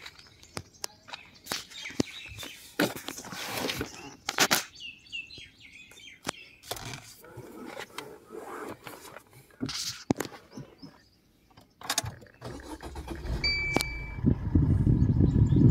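Clicks and handling noises inside a car cabin, with birds chirping outside. Near the end a short beep sounds and the Maruti Suzuki Vitara Brezza's 1.3-litre diesel engine starts and runs with a low rumble.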